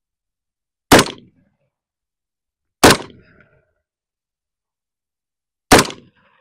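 Three rifle shots from a 300 Blackout AR-pattern rifle, about two seconds apart. Each is a sharp crack with a short tail of echo.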